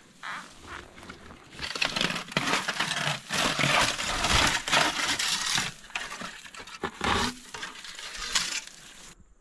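Dry, dead bracken ferns crackling and rustling as a rusted sheet-metal tub fragment is pulled up through them by hand. The crackling starts about a second and a half in, is densest in the middle, and dies away near the end.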